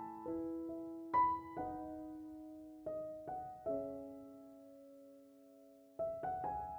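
Slow, gentle solo piano background music: sparse notes and chords ring out and fade. The sound dies away almost to a pause before a new group of notes comes in about six seconds in.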